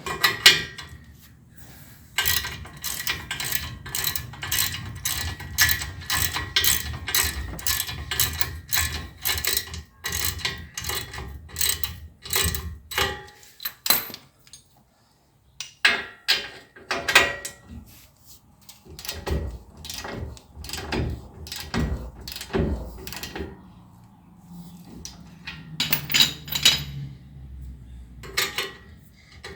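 Hand ratchet wrench clicking in several runs of rapid strokes with short pauses, tightening the upper ball joint nut on a Ford Ranger steering knuckle.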